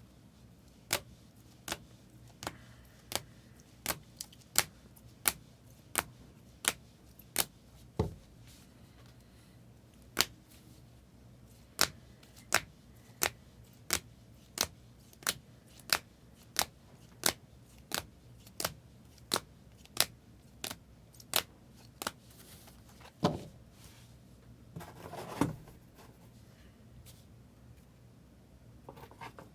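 Trading cards being handled and set down one after another on a table: a long run of sharp clicks, about one every two-thirds of a second, with a short pause about 8 s in. A louder thump comes near the end, followed by a brief rustle.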